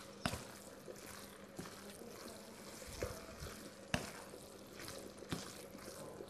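Cooking at a stove: a wooden spatula stirring and scraping food in a frying pan, with several sharp knocks of utensils against the pan, the loudest about four seconds in, over a faint steady hiss.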